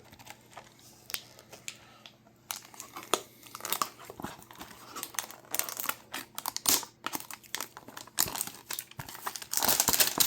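A Topps Chrome basketball hanger box's packaging being handled and torn open, with irregular crinkling, rustling and tearing that grows busier near the end.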